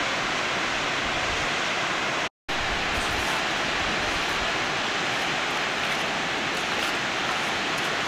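Steady rushing of Wentworth Falls, a tall waterfall plunging over a sandstone cliff, with a brief dropout to silence a little over two seconds in.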